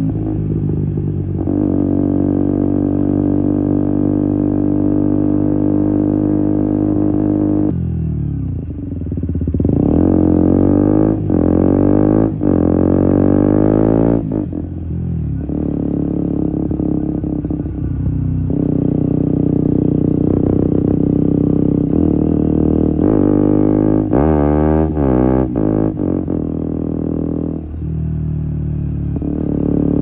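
Single-cylinder engine of a KTM Duke 125 with an Akrapovic exhaust, heard close to the exhaust tip while riding. It runs at steady revs for several seconds at a time, with stretches of rising and falling pitch as the rider accelerates, shifts and rolls off, around a third of the way in and again near the end.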